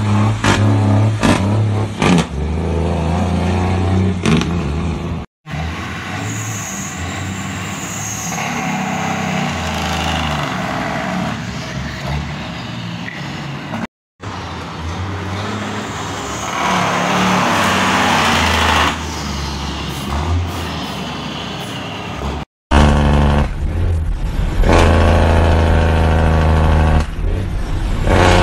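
Heavy truck engines running and pulling, in several short clips cut one after another, broken by three brief dropouts. About two-thirds of the way through there is a spell of louder rushing noise. Near the end a truck engine pulls strongly, heard from inside the cab.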